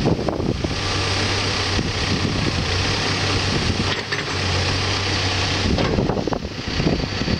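Backhoe's diesel engine running steadily with a constant low hum.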